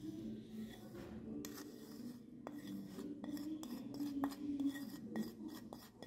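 Kitchenware clinking and tapping: a quick, irregular run of light clicks from utensils against glass and dishes, denser in the second half, over a low steady hum.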